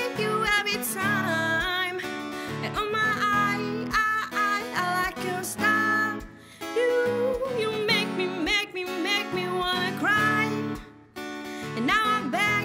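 A woman singing a pop melody with vibrato over strummed acoustic guitar, with a steady low beat underneath.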